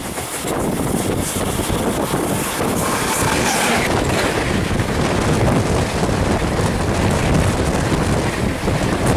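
An electric-hauled Rajdhani Express of LHB coaches rushing past on the adjacent track, close to the microphone: a loud, steady rush of wheel and rail rumble that builds in the first second, with wind buffeting the microphone.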